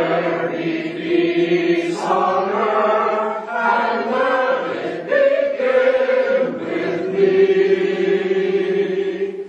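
A group of voices singing together in held notes that move from pitch to pitch, like a choir or chant.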